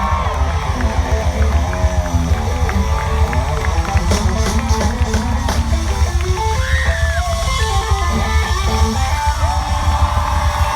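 Live country band playing an instrumental passage without vocals: a guitar plays the lead line over steady bass and drums.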